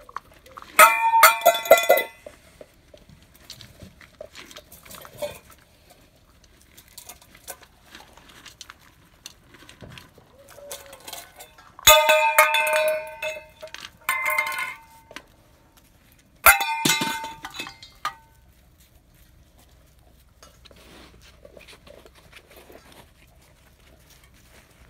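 Metal pots and pans clanged together in three loud bursts of rapid ringing strikes, near the start, about halfway through and shortly after: a noise test of the puppies' reaction while they eat.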